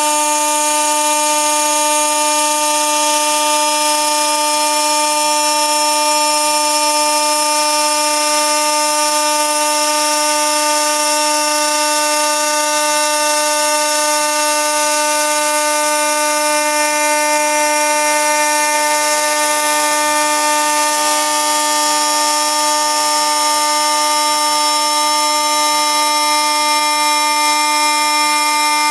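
Spindle of a CNC glass slotting and milling router running with a steady whine at one constant pitch, over a steady hiss.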